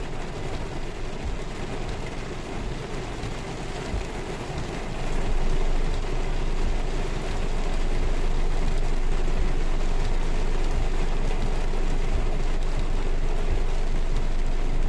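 Heavy rain beating on a car's roof and windshield, heard inside the cabin as a steady hiss that grows louder about five seconds in.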